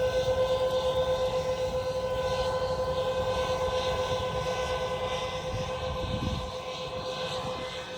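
Claas Xerion 12.650 tractor pulling a Bourgault air drill and air cart while seeding: a steady high whine over engine rumble, gradually getting quieter, with wind buffeting the microphone.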